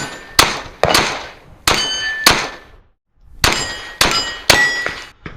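.22 rimfire shots, about eight of them, each answered by the clang of a steel plate ringing. There are several quick strings of shots, with a pause of about a second in the middle.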